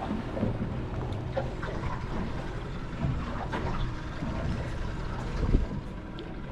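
Boat engine running steadily, with water washing around the hull and small knocks on deck.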